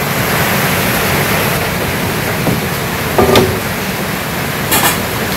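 Steady heavy rain rushing. A short knock about three seconds in, and a brief high hiss near the end.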